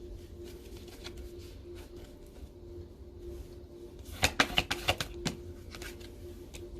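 Tarot cards being handled: a quick cluster of sharp clicks and snaps about four seconds in, over a faint steady hum.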